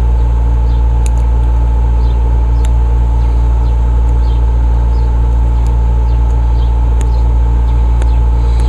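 Steady, loud, low mechanical hum with a thin higher whine, unchanging throughout, with a few faint sharp clicks scattered through it.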